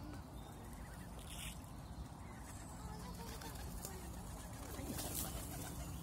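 Faint calls of a duck and her ducklings on open water, over a low steady rumble.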